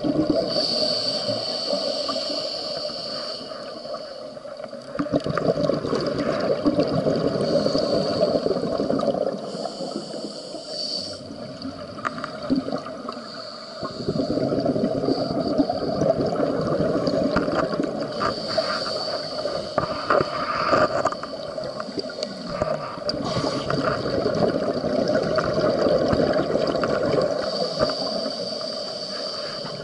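Scuba diver's regulator breathing heard underwater: slow breaths in through the regulator alternating with longer stretches of gurgling, crackling exhaled bubbles.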